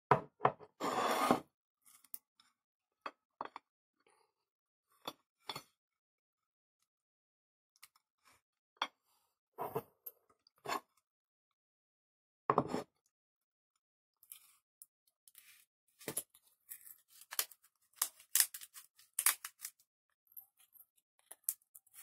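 Hand-twisted glass spice grinder grinding dried herbs: scattered short grinding clicks and scrapes, thickening into a quick run of clicks in the last several seconds.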